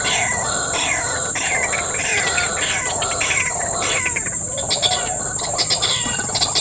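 Wetland animal chorus: a steady high-pitched insect drone under many short falling bird chirps, with a rapid ticking call joining about five seconds in.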